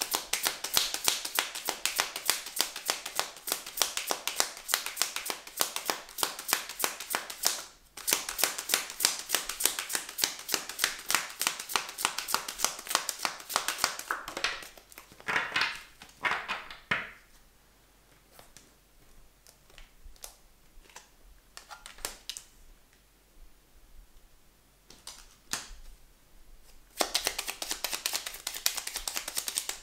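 Hands shuffling a deck of tarot cards: a long run of rapid card clicks with a brief break about eight seconds in. Around the middle it thins to scattered taps and a few soft swishes as cards are handled and one is laid on the table, then the dense clicking of shuffling starts again near the end.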